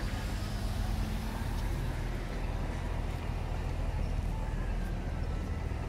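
City bus engine running as it pulls through an intersection, a steady low rumble mixed with passing car traffic.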